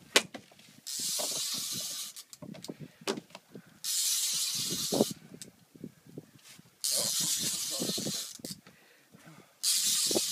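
Big sturgeon fishing reel hissing in four spells of about a second and a half, roughly every three seconds, with small clicks and knocks between them, as a heavy fish is played on the rod.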